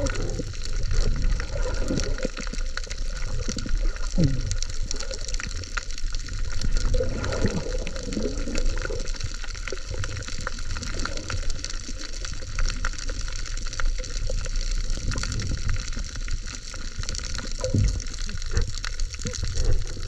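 Water noise around an underwater camera: a steady rushing wash with a low rumble. Low, wavering gurgles come through every few seconds.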